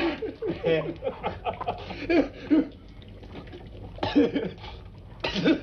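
Men laughing hard in quick, pitched ha-ha bursts, with a lull about three seconds in and fresh bursts of laughter after it.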